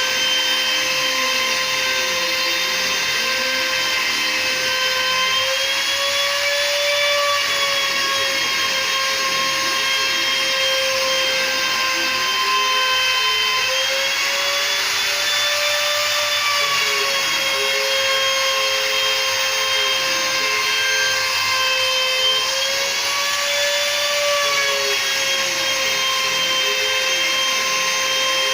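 CNC router running: the spindle gives a steady high whine whose pitch rises briefly three times, under the lower gliding whine of the stepper motors speeding up and slowing down as they drive the axes.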